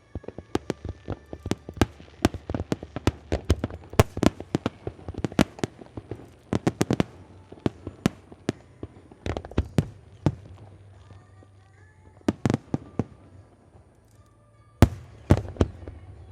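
Fireworks display: a rapid salvo of sharp bangs and crackles for about ten seconds, thinning to scattered reports, with two loud bangs near the end.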